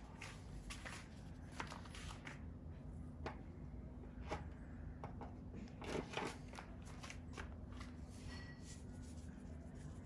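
Faint scattered ticks and clicks over a low steady hum, from an empty stainless-steel frying pan heating up on a portable gas stove.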